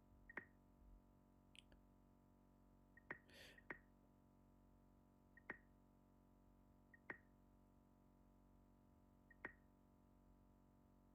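Near silence broken by about seven faint short clicks, each with a brief high tick, spaced irregularly a second or two apart.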